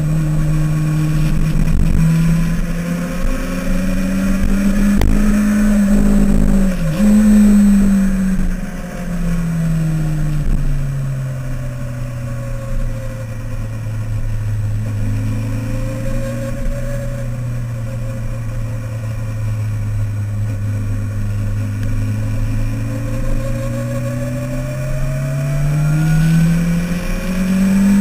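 A Mini's engine running hard on track, heard from on board the car. The revs climb over the first several seconds, with a quick dip about seven seconds in, then drop. The engine holds a lower steady note for a long stretch and rises again near the end.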